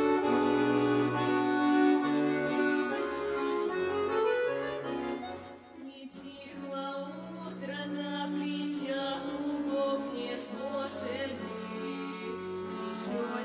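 Accordion playing a folk-style tune: held chords over bass notes that change every second or two.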